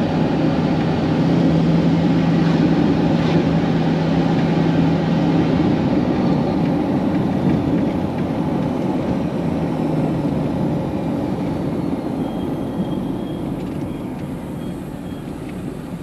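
Engine and road noise heard from inside a moving vehicle: a steady rumble with a low hum that fades out about six seconds in, growing gradually quieter toward the end.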